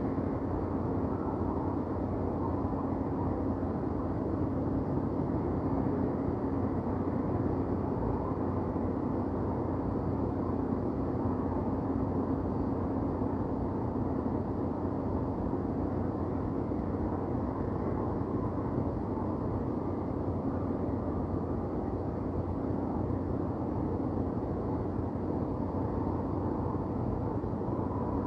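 Downtown city ambience: a steady, even wash of distant traffic noise with a constant low hum running underneath, no single event standing out.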